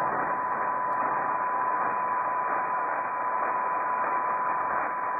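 Shortwave receiver hiss in upper-sideband mode on the 20-metre band, cut off above about 2.5 kHz by a 2.4 kHz filter, with a steady whistle near 1 kHz from an off-tune carrier running through it.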